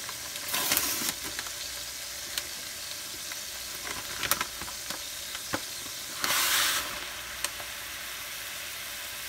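Onions sizzling in oil and chicken fat in a cast-iron skillet, a steady frying hiss. Two brief, louder surges of sizzle, about half a second in and about six seconds in, as dry rice-and-pasta mix is poured into the hot fat, with a few sharp clicks.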